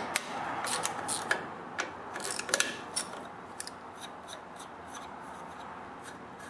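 Socket ratchet clicking in quick irregular runs as it loosens a 10 mm nut on an air filter base, loudest in the first three seconds. After that come fainter ticks and rubbing as the loosened nut is turned off by hand.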